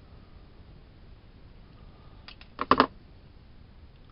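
Hand wire cutters working the ends of a PC power supply's wires: a couple of light clicks a little over two seconds in, then a quick, loud cluster of sharp clicks and snips just under three seconds in.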